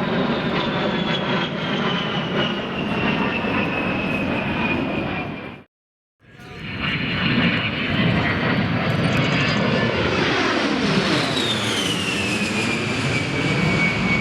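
Jet aircraft flying past: a loud roar with a high whine that falls in pitch as it goes by. The sound cuts out briefly about six seconds in, then another pass follows, its whine dropping again near the end.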